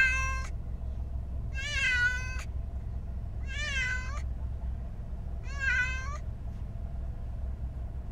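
A cat shut in a plastic pet carrier meowing over and over, a long meow about every two seconds. Steady low road rumble of the car cabin underneath.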